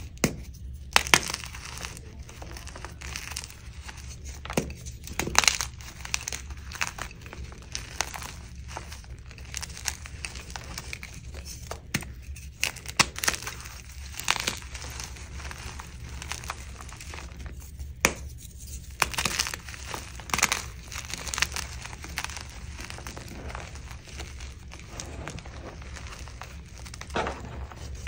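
Blocks of dyed gym chalk crushed and crumbled by hand in a plastic tub: a continuous, irregular run of soft crunches and crumbling, with sharper cracks now and then as pieces break.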